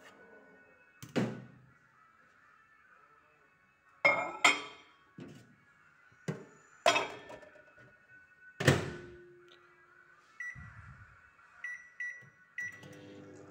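A Samsung microwave oven being loaded: a series of knocks and clunks as a dish with a plastic cover is handled and the door is shut, then a few keypad beeps, and the oven starts running with a steady hum near the end.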